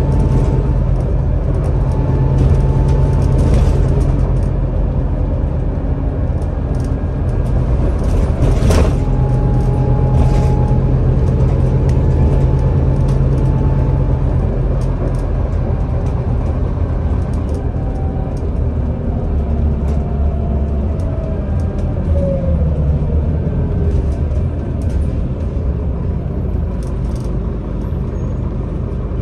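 Inside a Scania Citywide LFA articulated city bus on the move: steady drone of the engine and drivetrain with road and tyre noise. A single sharp knock comes about nine seconds in, and a whine falls in pitch in the last third.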